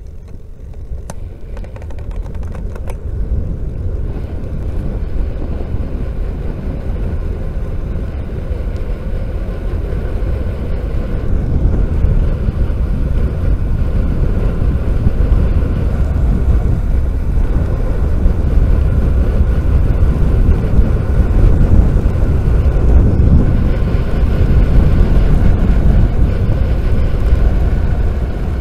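Wind rushing over a bike-mounted camera's microphone, mixed with tyre noise on tarmac, as a bicycle freewheels downhill at speed. It grows louder over the first dozen seconds as the bike picks up speed, then holds steady.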